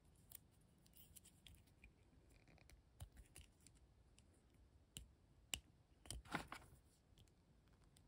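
Faint plastic clicks and scratches of a pen cap prying at the folded limbs of a small Transformers BotBots toy figure. The clicks are scattered, with a louder cluster about six seconds in.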